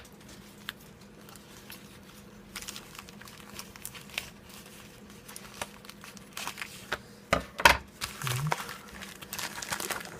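A parcel's wrapping being torn open and crinkled by hand, in irregular rustles and rips, with the loudest tearing about seven and a half seconds in.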